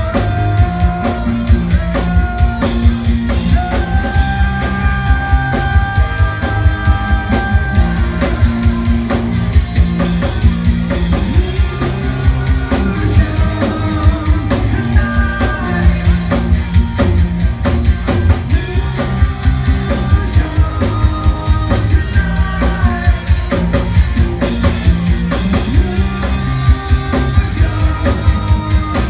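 A rock band playing live on electric guitars, bass guitar and drum kit, with a steady beat and long held melody notes.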